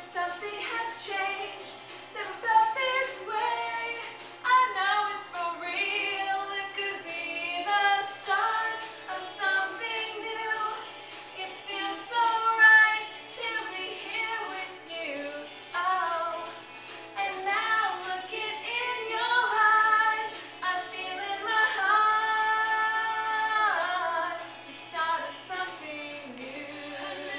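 A woman singing a pop song solo, not quite on key, with a long held note near the end.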